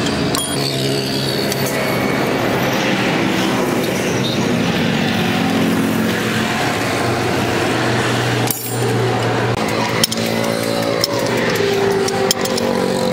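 Steady running of nearby motor vehicle engines and street traffic, with a low hum that shifts in pitch a few times. A few sharp metallic clicks from the lug wrench on the wheel nuts stand out against it.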